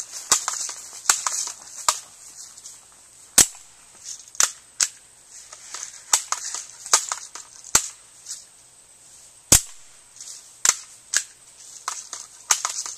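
Air guns firing BBs and pellets at a galvanized steel target trap: more than a dozen sharp cracks of shots and impacts at uneven intervals, two of them much louder.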